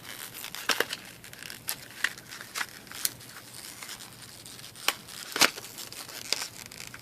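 Stiff plastic packaging of a laptop RAM module being pulled open: irregular crackles and sharp snaps of plastic, the loudest about five and a half seconds in.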